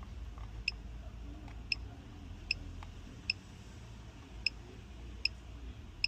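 A vehicle's electronic warning tick sounding about every 0.8 s, each tick short and high-pitched, over a low steady hum.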